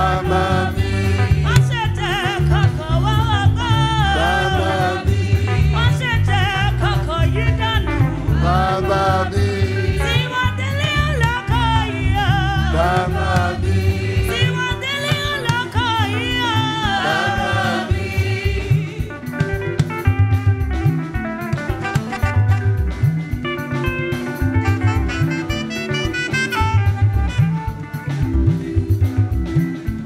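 Church choir singing a gospel song over a band with drums and bass. About two-thirds of the way through the voices drop out and the band plays on alone.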